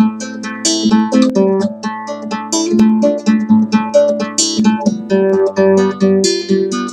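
Classical guitar played fingerstyle: a quick run of plucked notes, several a second, over held bass notes.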